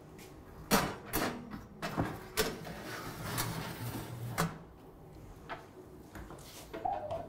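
Metal baking tray slid onto an oven rack and the oven door swung shut: a string of separate clanks and knocks, about eight in all, with a low hum beneath.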